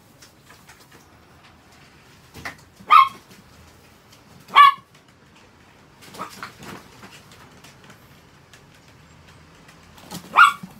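Chihuahuas barking: three short, sharp, high-pitched barks, about three seconds in, a second and a half later, and near the end, with a few fainter yips in between.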